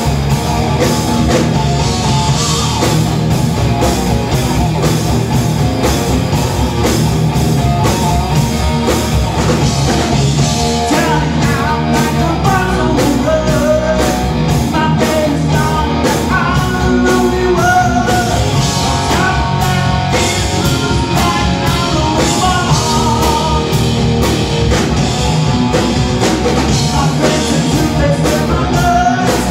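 Live rock band playing loud: electric guitar and drums, with a man singing.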